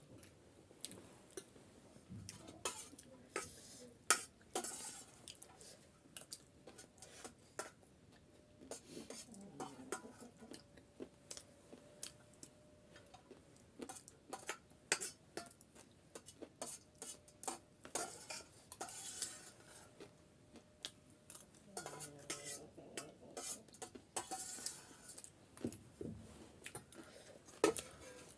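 Spoon clinking and scraping against a bowl of chatpate, many short irregular clicks, as the last of the snack is scooped up and eaten.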